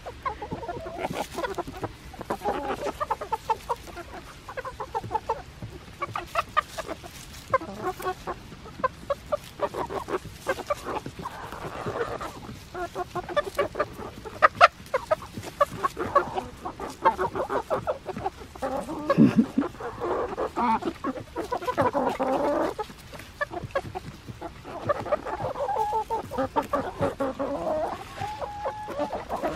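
A flock of backyard chickens clucking and chattering continually, with many quick taps as they peck at a pumpkin.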